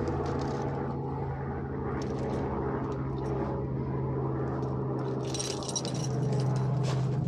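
Steady engine drone at a constant pitch, with a brief rise of hissing, rattling noise about five seconds in.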